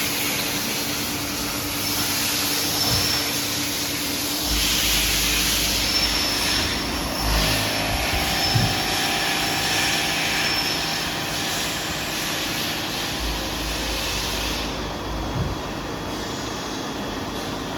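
Mori Seiki MV-Junior vertical machining center running: a steady machine hum with a high hiss, and a low rumble that comes in twice.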